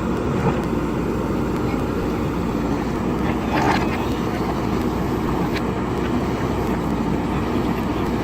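JCB backhoe loader's diesel engine running steadily under work, with a few short metallic knocks about three and a half and five and a half seconds in.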